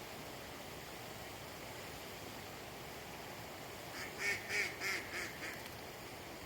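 A bird giving a quick run of about five harsh, honking calls, about three a second, over a steady background hiss. The calls come about two-thirds of the way in.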